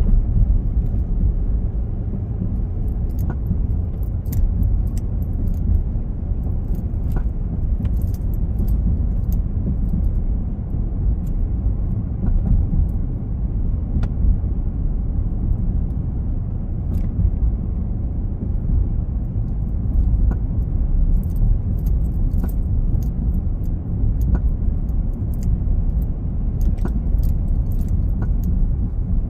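2022 Chevy Silverado 2500 HD pickup rumbling steadily, likely on the move, with short clunks and clicks at irregular intervals, sometimes several in quick succession. The clunking is an unexplained noise the owner is recording.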